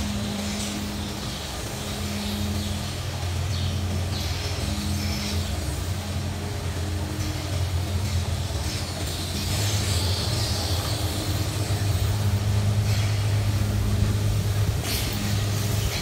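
Milking machinery running on a rotary dairy platform: a steady low machine drone with a tone that switches on and off in a slow rhythm, about once a second, and scattered short hissing clicks. The drone grows louder about halfway through.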